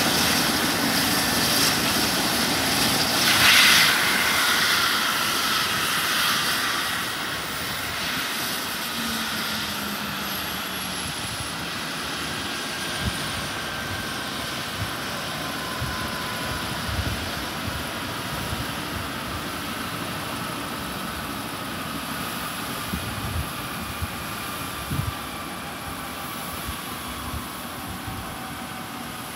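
Airbus EC135 twin-turbine helicopter shutting down after landing: the turbine whine falls slowly in pitch and the overall sound gradually dies away as the rotor runs down. A brief loud rush of noise comes about three and a half seconds in.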